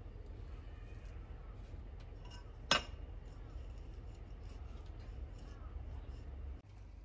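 Hands firming potting soil around a newly set plant in a planter, with faint scraping and rustling, over a steady low rumble. One sharp click comes about two and a half seconds in.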